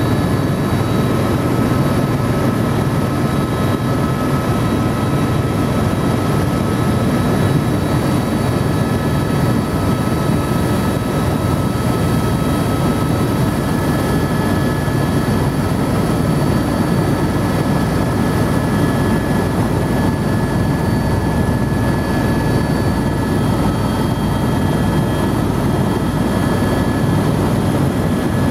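Helicopter in flight heard from inside the cabin: a loud, steady drone of rotor and engine, with several thin, steady high whines held over it.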